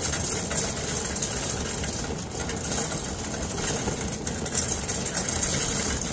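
Shopping cart rolling across a store floor, its wheels and wire frame giving a steady rattling rumble.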